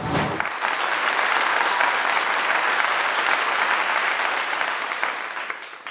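Audience applause, starting abruptly and holding steady before easing off slightly near the end.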